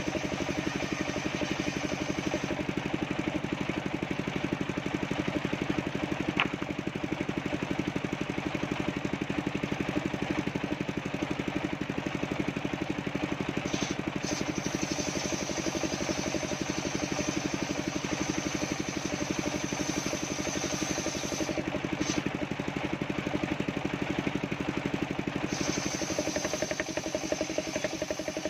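Homemade engine-driven table circular saw running steadily while ripping coconut-wood planks. The engine drone holds level, and a high hiss from the blade cutting drops away and returns a few times as boards are fed through.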